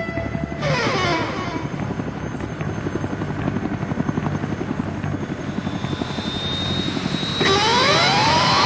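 Fast, steady chopping like helicopter rotor blades, with a falling sweep of pitch about a second in and a rising sweep near the end.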